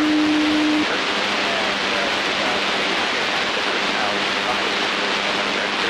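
Challenger II ultralight's engine, propeller and airflow noise heard from the open cockpit in cruise, a steady loud rush. A steady hum drops abruptly to a lower, fainter pitch about a second in. The engine is running hot, with head temperatures up around 450 and 400, which the crew suspect comes from the cooling-fan belt.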